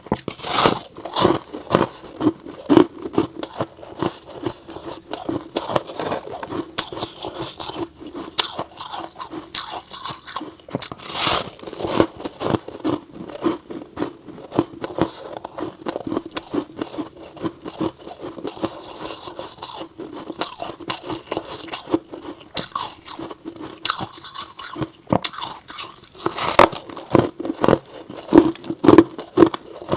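Close-miked biting and chewing of soft white frost ice: an uneven run of sharp crunches with a steady chewing rhythm, the crunches thickest near the start, around the middle and toward the end.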